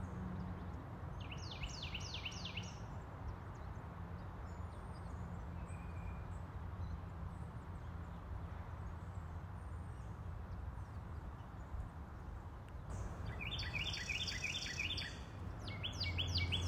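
Outdoor ambience: a steady low rumble, with a bird calling in quick runs of short, high, falling notes, once about a second in and again near the end.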